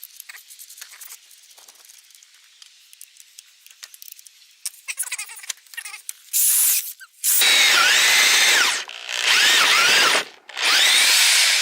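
Rotary hammer drill with a chuck adapter boring a 1-inch drill bit into firewood: after a few light clicks, one short run and then three longer runs, the pitch sagging and rising as the bit loads up in the wood.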